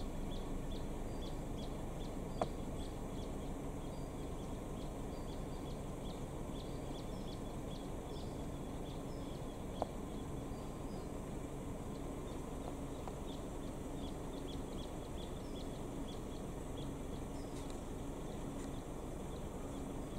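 Eucalypt bushland ambience: a steady low rush with many faint, short, high chirps scattered throughout, and two sharp clicks, one about two seconds in and one about ten seconds in.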